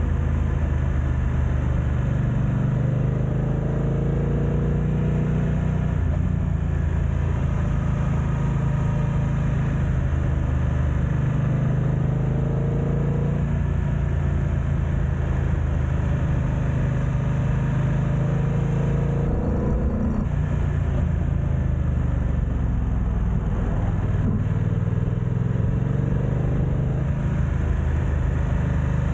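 BMW F900XR's 895 cc parallel-twin engine running under way as the motorcycle is ridden, with the revs rising several times.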